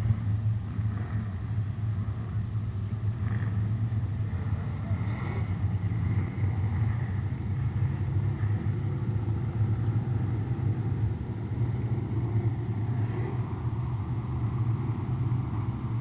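A pack of street stock race cars running laps on an oval track, their engines making a steady, continuous low drone.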